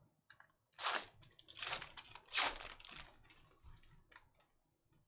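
A foil trading-card pack being torn open and its wrapper crinkled: three crackly rips in the first three seconds, then a few light clicks as the cards are handled.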